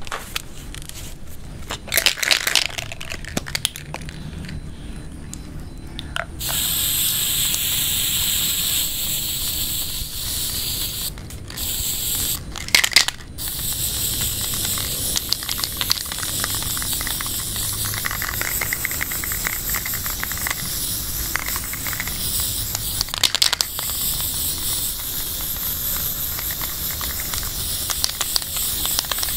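Aerosol spray-paint can spraying in long, steady hisses, with short breaks. A few sharp knocks and clatters come before the spraying starts and in the breaks.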